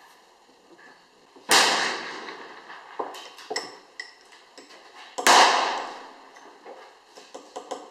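Small metallic clicks and knocks as a hand works the cylinder of a black-powder percussion revolver. Two loud sharp bangs, about four seconds apart, each ringing on for about a second, stand out over the clicks.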